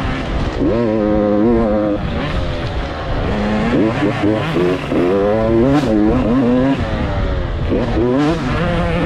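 Motocross bike engine revving hard on the track, its pitch climbing and dropping several times as the throttle is worked and the gears change.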